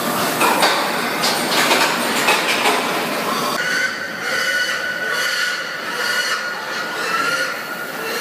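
Automatic pig-stunning and restraining machine running, metal clattering and rattling for the first few seconds. A steady high-pitched squeal runs throughout and grows stronger about halfway through.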